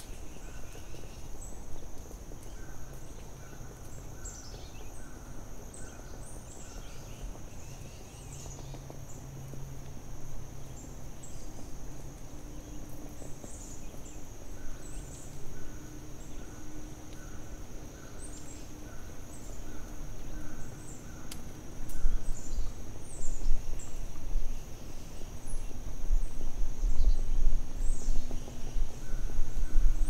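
Forest ambience: birds chirping and calling in short repeated notes over a steady high-pitched drone, with a low rumble that grows louder about two-thirds of the way through.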